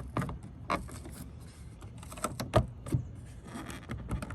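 2014 Hyundai Sonata taillight assembly being wiggled and pulled at in its mounting, giving scattered clicks and knocks, with a few louder knocks about halfway through.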